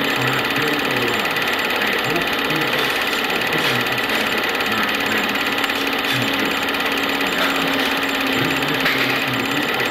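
Film projector running: a steady mechanical whirr with hiss and a low hum.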